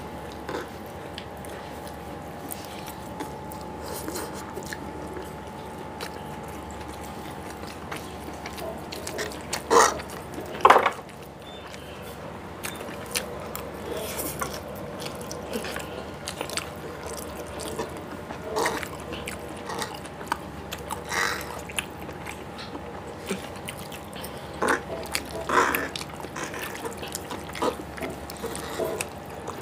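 Close-up eating sounds of cheesy Maggi noodles and a veg burger: wet chewing, lip smacks and noodle slurps, with short irregular smacks, two louder ones about ten and eleven seconds in. A faint steady hum runs underneath.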